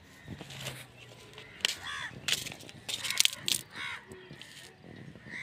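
Short bird calls, several in a row, over light rustling and a few taps.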